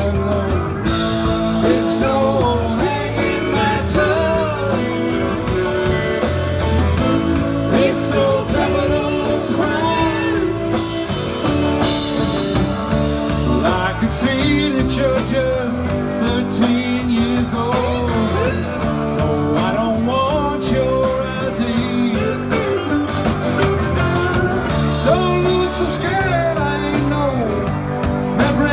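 Live rock band playing: electric guitars, bass guitar and a drum kit, with singing over them.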